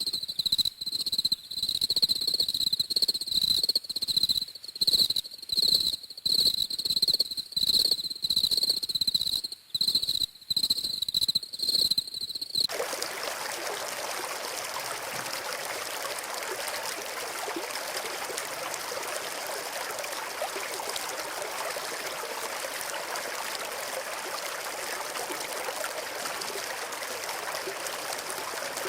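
An insect trilling steadily at a high pitch over irregular low thumps, then, about 13 seconds in, an abrupt switch to the steady rush of running water.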